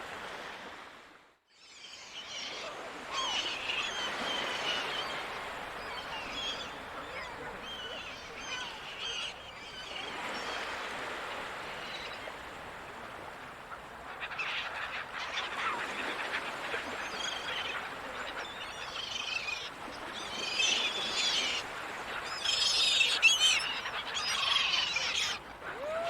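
Gulls calling over a steady wash of ocean surf, the calls growing more frequent and louder towards the end. The sound briefly drops out about a second in.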